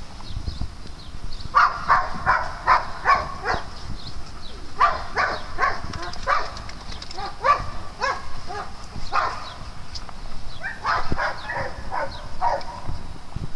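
Dogs barking in quick runs during rough play, in four bouts of several barks each.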